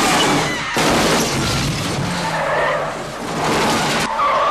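A car crashing and sliding upside down on its roof, metal scraping and grinding along the road in several loud surges.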